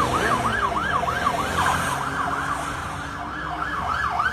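Police squad car siren on the yelp setting: a fast rising-and-falling wail, about three sweeps a second, dipping a little past the middle and growing louder again near the end, with traffic noise underneath.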